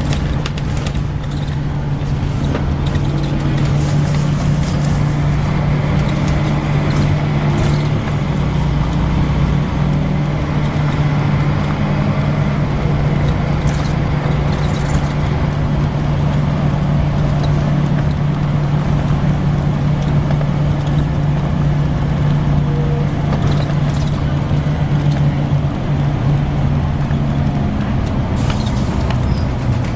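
Volvo B10BLE bus's diesel engine running steadily under way, with a faint high-pitched whine from the ZF automatic gearbox over the low drone for roughly the first half. A few brief rattles or clicks are heard.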